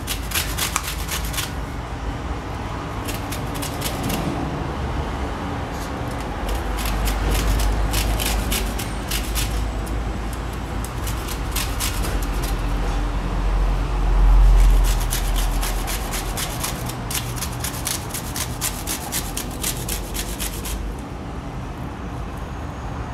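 A lemon being grated on a flat metal hand grater: quick scraping strokes in runs, with short pauses between them. A low rumble builds up underneath through the middle and is loudest a little past halfway.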